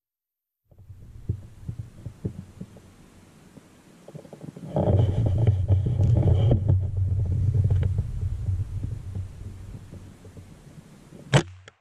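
Low rumbling and rubbing noise on the camera microphone with scattered clicks and knocks as the camera is moved about, growing louder partway through, then one sharp crack near the end.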